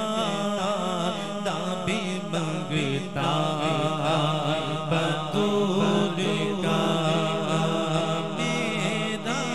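Group of men singing an Urdu manqabat (devotional song), a wavering, ornamented melody held over a steady low drone.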